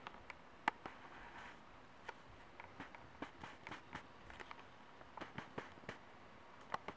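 Faint, irregular clicks and taps from a hand-held camera being handled while it zooms and moves, over a quiet hiss; the sharpest click comes under a second in.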